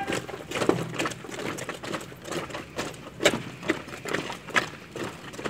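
Marching boots striking the ground during a parade drill: scattered sharp footfall knocks at uneven spacing over a low background murmur.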